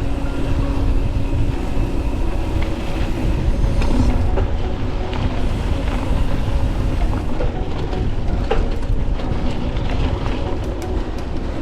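Wind rumbling on the microphone of a camera riding along on a mountain bike, with scattered clicks and rattles from the bike over rough ground that get thicker near the end.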